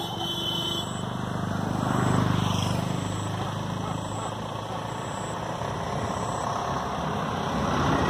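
A motor vehicle passing: low engine noise swells to its loudest about two seconds in and fades, and another begins to swell near the end.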